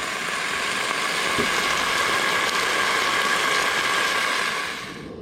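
Pork chops sizzling and crackling in a pan on a propane camp stove, a steady loud hiss that cuts off sharply near the end.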